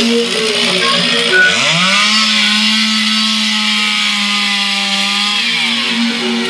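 Petrol chainsaw revved from idle up to full throttle about a second and a half in, held at high revs for about four seconds, then let back down near the end.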